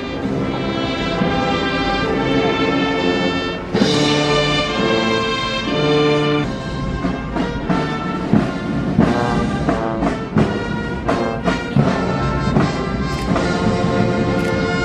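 Ceremonial music led by brass, playing held chords at first; from about six seconds in, drum strikes beat through it.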